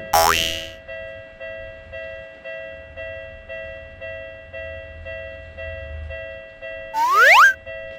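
Japanese level-crossing warning bell ringing about twice a second. A loud sweeping sound effect comes just after the start, and a short rising glide, like a cartoon sound effect, comes near the end.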